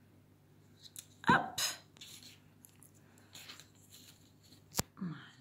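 Soft rustling and tapping of cardboard toilet-roll strips being handled and pressed together, with a brief vocal sound about a second in and one sharp click near the end.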